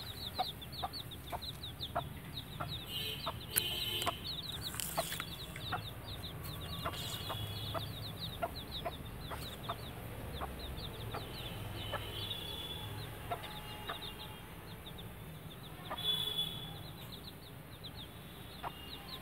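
Hen clucking in short, scattered notes over a steady run of quick, high, falling peeps from her chicks, with a few bursts of leaf rustling.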